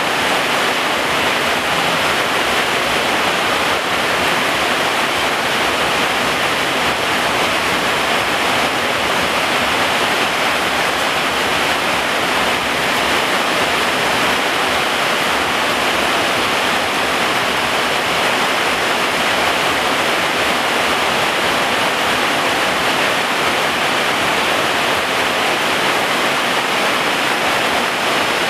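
Heavy rain pouring down on garden plants and ground: a loud, dense, even hiss that holds steady without let-up.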